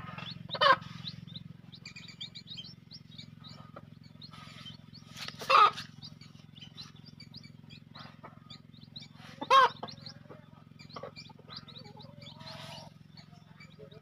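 Chickens calling: three loud, short calls spaced about four seconds apart over many quick high chirps, with a steady low hum underneath.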